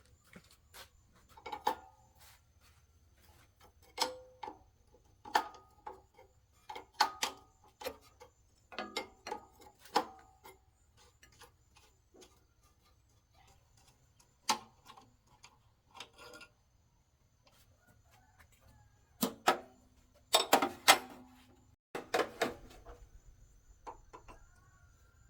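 Irregular metallic clinks and knocks with short ringing, as of metal tools and parts being handled and set down, with a quick run of louder knocks near the end.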